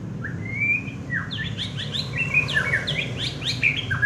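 White-rumped shama (murai batu) singing. A rising whistled note opens the phrase, and about a second in it breaks into a fast, varied run of sharp downward-sweeping and stepped whistles. A steady low hum lies underneath.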